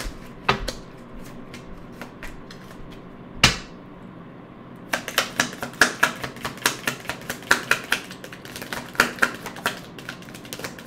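Deck of tarot cards being shuffled by hand: a few separate taps and one sharp knock in the first half, then from about five seconds in a fast run of cards riffling and snapping against each other.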